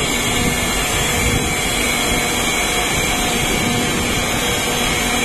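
Oil pyrolysis plant running: steady machinery noise from its motors and fans, with a steady high whine over a low hum.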